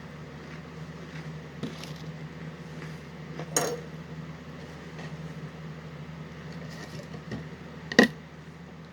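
Dishes clinking, a spoon against a cereal bowl: a sharp knock about three and a half seconds in and a louder one near the end, with a few faint ticks, over a steady low hum.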